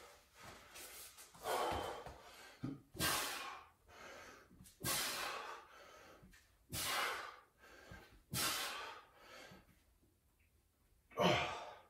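A person breathing hard under the exertion of a push-up set: heavy exhalations about every one and a half to two seconds, with quieter breaths between.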